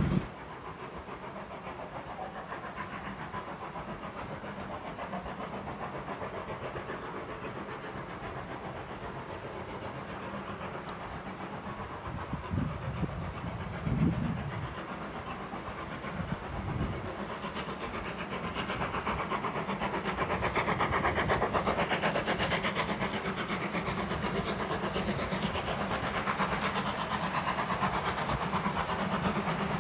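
Steam locomotive working a train, heard from afar and growing louder as it approaches, with the hiss of steam. A few brief low rumbles come about 12 to 17 seconds in.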